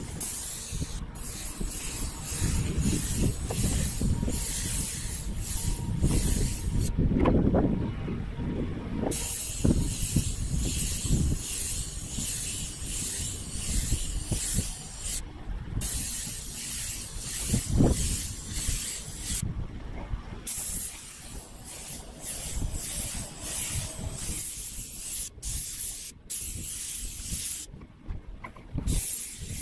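Airless paint spray gun hissing as it sprays undercoat primer onto corrugated steel roofing. The hiss stops briefly several times, about 8 seconds in, 15, 20 and near the end, with a low rumble and a few dull thumps underneath.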